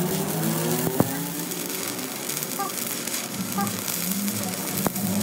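Electric arc welding on a cracked steel truck rear axle housing: the arc gives a steady crackling sizzle. There are two sharp clicks, about a second in and near the end.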